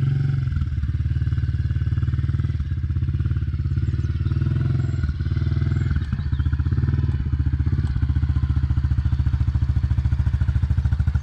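Honda CRF110F pit bike's small single-cylinder four-stroke engine running at a steady, low engine speed with an even pulse while the bike is ridden slowly.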